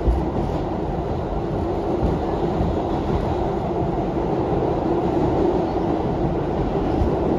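R62A subway train running on the rails: a steady rumble of wheels and car body, with a few low thumps.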